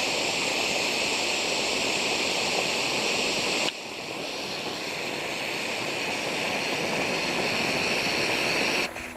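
Canister gas stove burner hissing steadily under its pot as water heats. The hiss drops a step about four seconds in and is shut off abruptly near the end.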